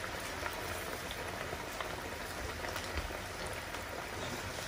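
Breadcrumbed chicken breasts frying in hot oil in a frying pan: a steady sizzle with many small crackles.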